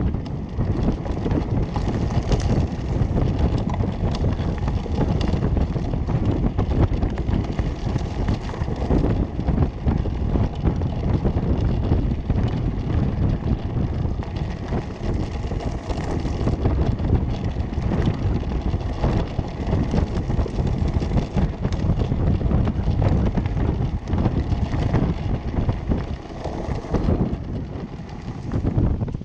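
Homemade electric go-kart on hoverboard hub-motor wheels rolling over a rough dirt and gravel track: a steady low rumble with continual rattling and knocks from the wheels and frame, and wind on the microphone. It gets a little quieter near the end as the kart reaches a smoother paved surface.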